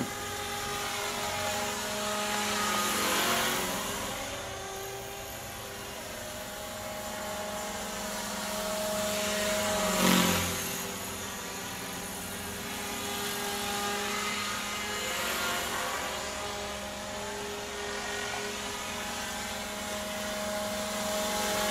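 Thunder Tiger Mini Titan electric RC helicopter in flight: a steady whine of motor and rotor blades whose pitch swings up and down as it makes close passes. It is loudest about ten seconds in.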